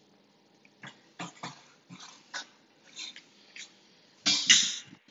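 Metal folding chair being lifted and turned around on a wooden floor: a series of light knocks and clanks, then a louder scrape about four seconds in.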